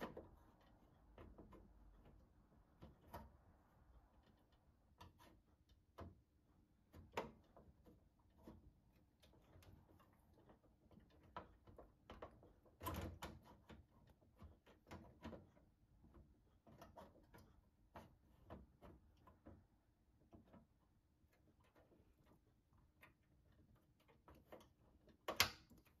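Faint, scattered clicks and knocks of a 3.5-inch hard drive being slid into a steel PC case's drive cage and fastened with plastic thumbscrews. There is a louder knock about halfway through and a sharp click near the end.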